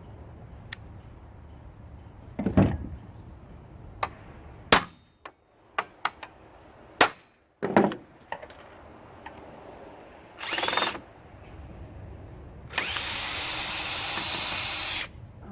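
Handheld power drill/driver run in a short burst, then steadily for about two seconds, after a series of sharp knocks and clanks from parts being handled.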